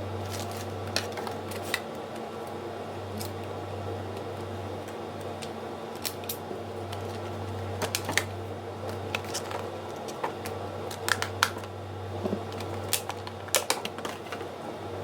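Irregular light clicks and taps of small hard parts being handled during a PC build, over a steady low hum. The taps come in small clusters, the busiest near the end.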